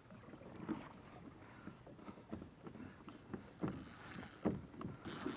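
Faint, irregular water splashes and knocks against the hull as a kayak is moved through the water, roughly one stroke every half second to a second.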